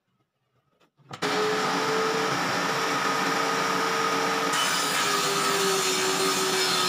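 Handheld electric power tool starts up about a second in and runs steadily with a high whine, working the wood of a table rail; the whine drops a little in pitch about halfway through.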